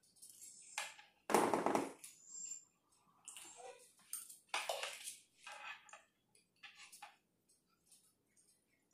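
Eating sounds: a metal utensil scraping and clinking in a bowl, with chewing in between, as a series of short scrapes and crunches. The loudest is a longer noisy burst about a second and a half in.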